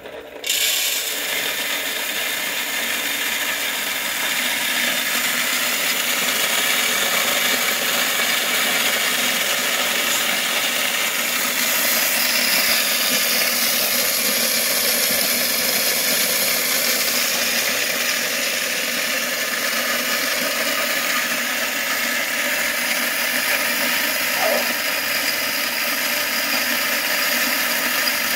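Electric corn mill grinding dried corn kernels into meal, a steady loud grinding that starts about half a second in.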